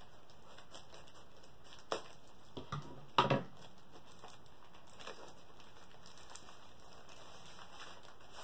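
Plastic poly mailer being cut open and handled: soft rustling and crinkling of the plastic, with a few sharp crackles, the loudest about three seconds in.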